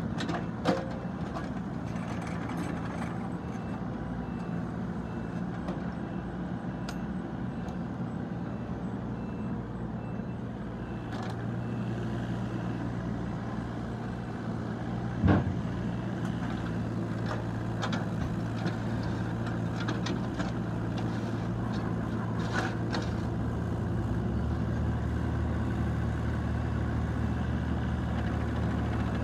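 Yanmar ViO35 mini excavator's diesel engine running steadily while the machine is worked, its note deepening about two-thirds of the way through. Two sharp metallic knocks stand out, one right at the start and a louder one about halfway.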